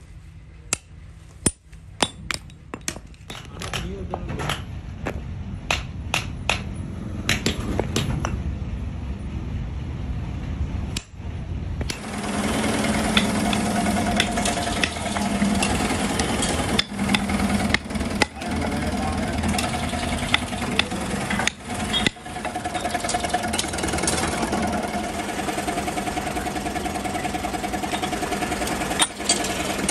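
Hand hammer blows on steel, striking a punch into a metal plate, sharp irregular clangs. About twelve seconds in a machine starts running steadily with a hum and a rapid rattle, with a few sharp knocks over it.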